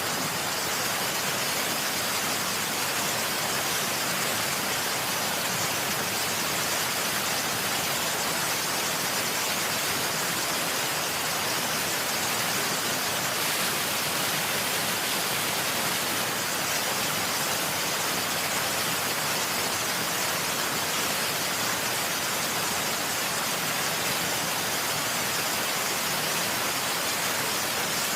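Waterfall: a steady, unchanging rush of falling water, mostly high hiss.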